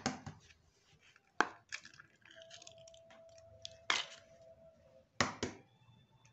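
A few sharp, separate taps and clicks as eggs are cracked and opened into a plastic mixing bowl of margarine, with a fork knocking in the bowl. Two of the taps come close together near the end, and a faint steady tone sounds in the middle.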